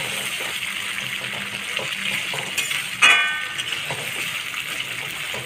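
Wet masala and soya chunks sizzling in hot oil in a kadhai while a spatula stirs and scrapes the pan, with small knocks throughout. About three seconds in comes one sharp, ringing scrape of the spatula on the pan.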